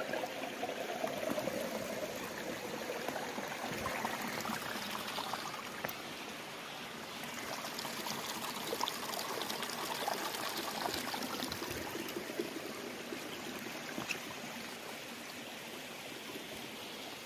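Creek water flowing and splashing, a steady rushing wash of noise with a few small splashes.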